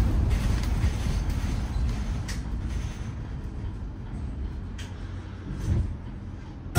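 Cabin noise of a Mercedes-Benz eCitaro G battery-electric articulated bus on the move: a low road and tyre rumble with no engine note. The rumble fades over the first few seconds to a quieter hum, with a few faint clicks.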